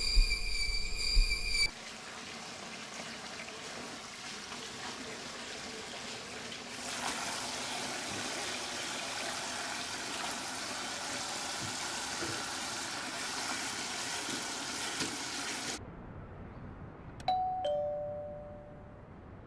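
Eerie music with two loud hits cuts off, then water runs from a tap into a sink, getting louder about five seconds later and stopping suddenly. Near the end an intercom doorbell gives its two-tone chime, a higher note falling to a lower one.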